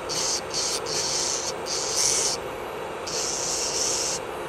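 Electric nail drill (e-file) running steadily while its bit files off gel polish. The bit gives a gritty hiss each time it touches the nail, about five short passes that start and stop.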